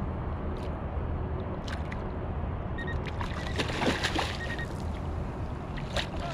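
Water sloshing and gurgling against a kayak hull over a steady low rumble. A few sharp knocks, and a short burst of splashing noise about halfway through.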